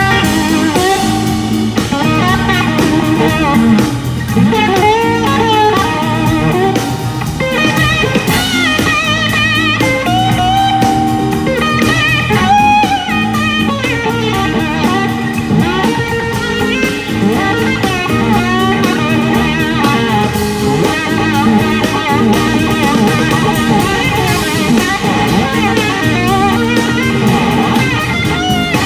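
Live blues-rock band with an electric slide guitar solo on a Gibson SG. The lead notes glide and waver in pitch over steady drums and a second electric guitar.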